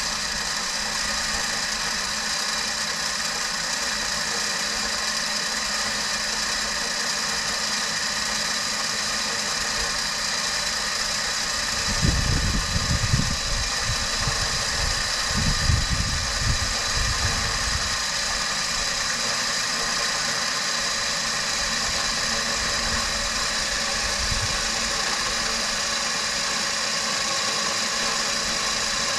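Electric ATV winch on a Polaris 570 running steadily as it spools a new, thicker 7mm line onto its drum, over the quad's idling engine. A few louder low rumbles come about halfway through.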